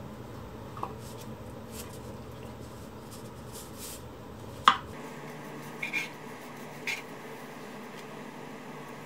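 A knife knocking against a wooden cutting board while slicing marshmallows. There is one sharp knock about halfway through and a few lighter clicks after it, over a steady low hum.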